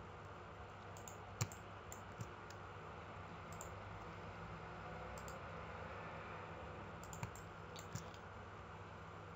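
Faint computer mouse clicks: a few scattered single clicks, the loudest about a second and a half in, over a low steady hum.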